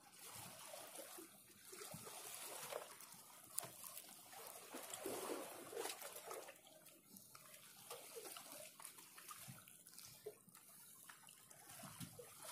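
Faint sea water lapping and sloshing against the concrete blocks of a breakwater, with a few small clicks.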